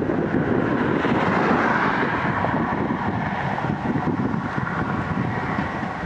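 Komatsu PC210LC hydraulic excavator running as it swings and lifts its boom, its engine working harder for a couple of seconds about a second in.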